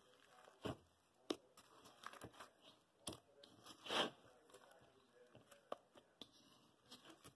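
Crunchy slime being squeezed and pressed by hand, giving faint, irregular crackles and pops, with the loudest, longer crackle about four seconds in.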